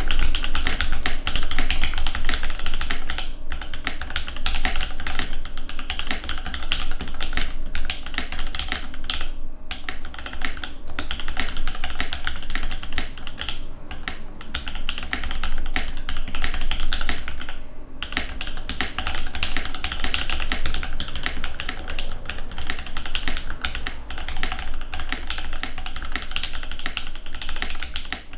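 Fast continuous typing on a TX-HJ75 custom mechanical keyboard with lubed Alpaca linear switches and PBT keycaps: a dense run of keystroke clacks, broken by a few short pauses.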